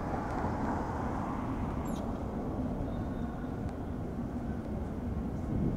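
Steady low rumble of city street ambience and distant traffic. A brief high-pitched squeak glides downward about two seconds in.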